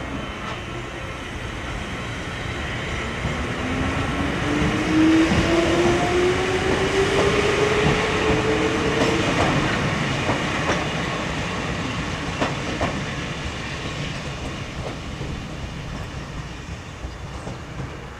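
The Tama train, an electric train with cat-illustration livery, pulling out and accelerating past. Its motor whine rises steadily in pitch, then the wheels click over rail joints and points as it runs away and the sound fades.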